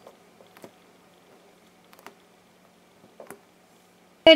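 A few faint, soft ticks and crackles as fingers squeeze a smooth foam squishy toy. A woman starts speaking at the very end.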